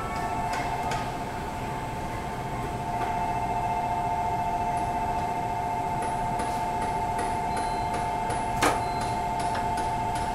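Shinkansen platform departure bell ringing on without a break, a steady electronic two-tone ring heard through the open carriage door. A single short knock sounds near the end.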